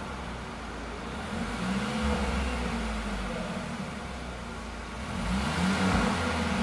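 Mercedes-AMG GLC300's turbocharged four-cylinder engine revved twice through a Fi catback exhaust and 200-cell downpipe with the exhaust valves closed. It idles between the revs, which come about two seconds in and again near the end.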